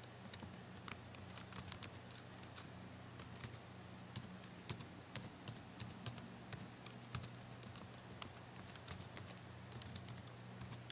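Faint typing on a computer keyboard: a run of irregular keystroke clicks as a password is entered twice, over a steady low hum.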